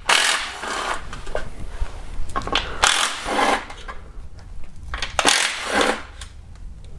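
Cordless ratchet run in three short bursts, each under a second, spinning out the bolts of an automatic transmission's oil pan.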